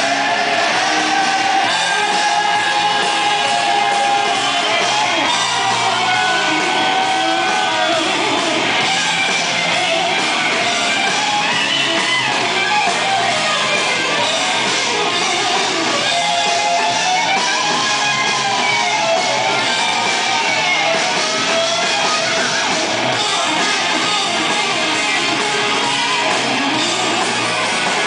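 A live rock band playing electric guitars and drums, loud and continuous, with a lead line gliding in pitch above the band.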